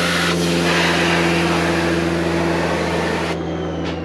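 Pressure washer running with a steady hum while its wand sprays water in a loud hiss; the spray stops suddenly about three seconds in and the machine keeps humming.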